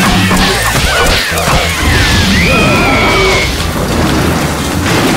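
Cartoon soundtrack mix: music with crashing impact effects and high, gliding squeals from the cartoon characters.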